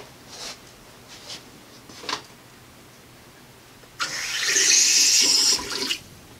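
Water running hard from a tap for about two seconds, turned on about four seconds in and shut off abruptly, after a few light knocks and clinks of tools being handled.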